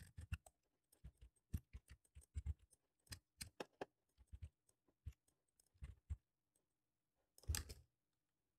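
Faint, scattered clicks of a computer mouse and keyboard, about a dozen in all, the loudest a brief knock about three-quarters of the way through, over a faint steady hum.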